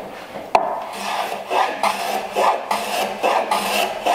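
Block plane taking short, quick strokes across the end grain of a board held in a miter jack, about three rasping strokes a second, while trimming a 45-degree bevel. A sharp knock comes about half a second in.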